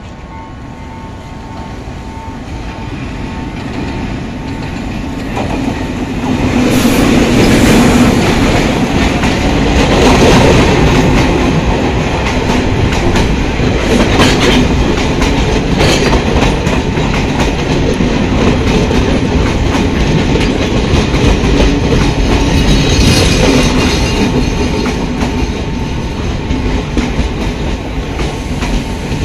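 Express passenger train passing close by: the diesel locomotive grows louder as it approaches over the first several seconds. The coaches then go past with a steady rumble and a clickety-clack of wheels over the rail joints.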